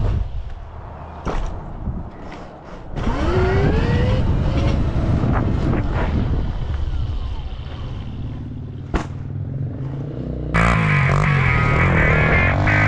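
72-volt electric pit bike's motor whining and rising in pitch as it accelerates, over a steady rushing noise while riding on pavement. About two seconds before the end, music cuts in over it.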